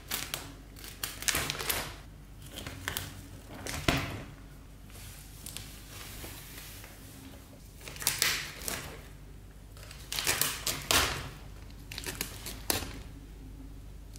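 Paper sheet crinkling and tearing in irregular bursts as cats push their heads and paws through a hole torn in it.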